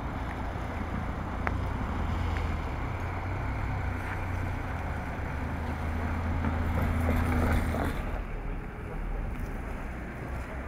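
Outdoor street ambience: a steady low rumble with a few faint clicks. The sound changes about eight seconds in.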